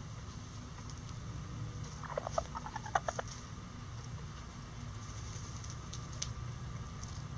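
A bantam chicken gives a quick run of about ten short, soft clucks over a second or so, about two seconds in, over a steady low background rumble.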